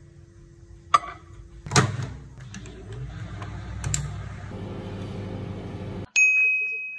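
Dial-timer microwave oven: a clack as the door shuts, a click as the timer knob is turned, then the oven runs with a steady hum. The hum cuts off suddenly and the timer bell dings once and rings out, signalling that heating is done.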